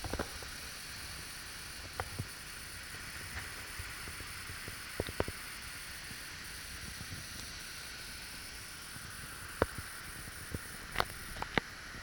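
Steady rush of the Uchan-Su waterfall, with a few short sharp clicks scattered through it.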